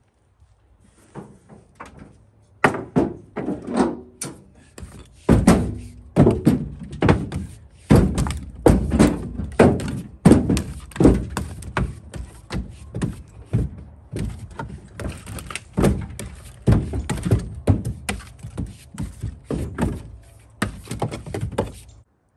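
Split firewood being pulled out of a loaded pickup bed with a long-handled tool: pieces tumble and knock against each other and the bed in a run of irregular wooden thunks.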